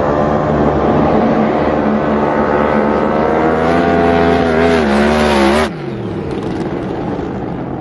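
Drag boat engine running loud and high, its pitch wavering and rising a little, then cut off suddenly almost six seconds in, leaving a lower, quieter rumble.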